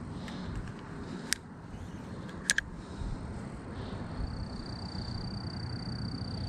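Steady low outdoor rumble with a few sharp clicks, two of them about a second apart in the first half, and a thin, steady high-pitched tone that starts about two-thirds of the way through.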